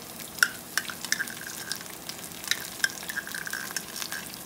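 Sliced onions and ginger-garlic paste sizzling steadily in hot oil in a pot, with several sharp clicks and scrapes of a spoon scraping paste from a small ceramic ramekin into the pan.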